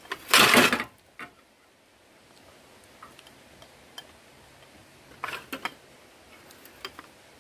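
Eating utensils clicking against bowls: a spoon and chopsticks tapping and scraping on dishes, with scattered sharp clinks and a quick cluster of them a little past the middle. A short loud scuffing noise comes about half a second in.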